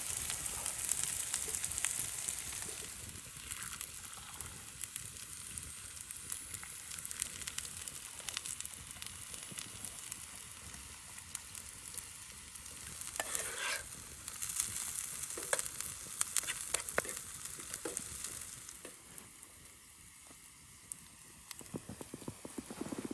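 Chopped onions frying in a pan on a grill over a wood fire, sizzling steadily with scattered small pops and crackles. The sizzle falls quieter near the end.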